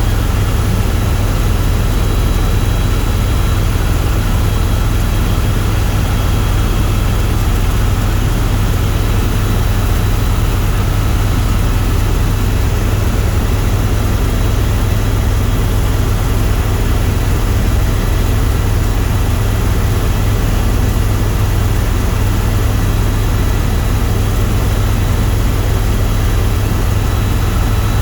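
Tour helicopter in flight: steady, loud rotor and engine noise with a deep low drone.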